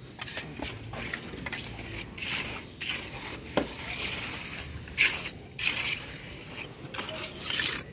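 Steel trowel working freshly poured wet concrete: a series of short scrapes and wet squishes as the surface is smoothed.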